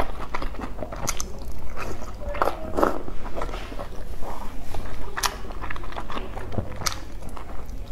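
Close-miked mouth sounds of a person eating soft boiled dumplings dipped in chili sauce: wet biting and chewing with irregular sharp clicks and smacks.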